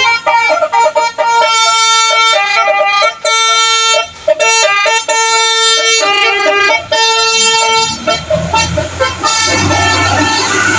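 Bus telolet horn playing a multi-note melody, the pitched notes changing every fraction of a second with short breaks between phrases. About eight seconds in the horn stops and a low engine rumble takes over.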